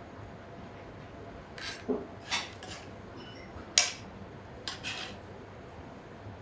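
Knife and fork scraping and clinking against a plate as cooked chicken breast is sliced, with dishware knocking a few times; the sharpest clink comes a little before the middle.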